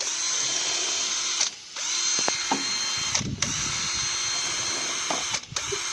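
Electric drill fitted with a paint stirrer, mixing a bucket of paint. The motor whine runs steadily and stops briefly three times before starting again.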